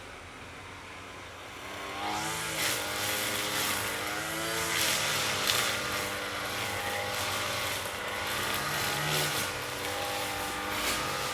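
Lawn mower engine running, its pitch dipping and recovering several times. It is quieter for the first two seconds, then louder.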